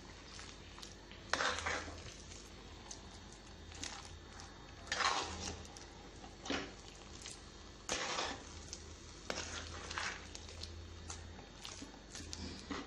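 Metal spoon stirring and scraping a thick, mushy tapioca and chicken mixture against the sides of a clay pot, in irregular scrapes every second or two, over a faint steady low hum.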